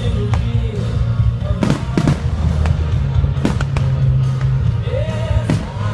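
Fireworks bursting with a few sharp bangs over loud music with a heavy bass line, the music soundtrack of the fireworks show.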